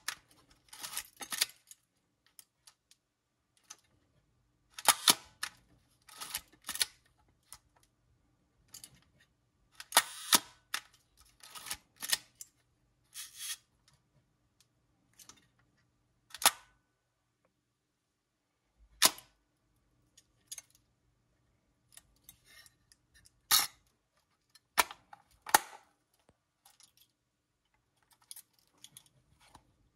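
Mechanical clicks and clacks from a Kiev 15 TEE SLR camera body being worked by hand: sharp clicks, some in quick pairs or clusters, with quiet gaps between them.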